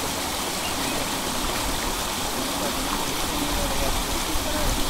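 Shallow rocky stream rushing steadily over boulders in small rapids.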